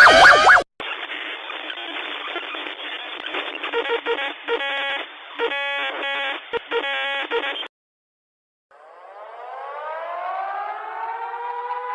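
Emergency-alert style audio. A warbling alert tone cuts off, followed by hiss with a handful of short electronic beeps, then a brief silence. Then a civil-defence siren winds up, rising in pitch and levelling off into a steady tone.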